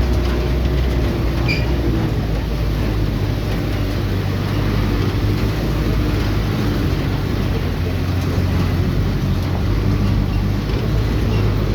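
Vehicle on the move: a steady engine and road rumble.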